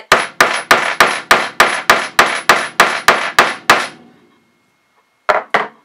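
Rubber mallet striking the top of an 18 mm steel hand hole punch, about thirteen quick blows at roughly three a second, each with a short metallic ring, then two more blows near the end: the punch being driven through faux leather on a poly board. Larger punches like this one take many more blows than the small sizes.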